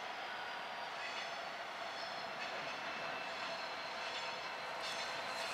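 Norfolk Southern diesel freight locomotive and its train approaching from a distance, a steady rumble that grows slightly louder.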